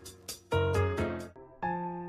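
Background music: pitched notes struck about every half second and left to ring.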